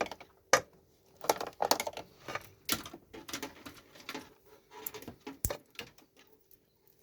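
Irregular clicks, taps and scrapes of hands handling multimeter test probes and their leads, with a sharp click about half a second in and another about five and a half seconds in.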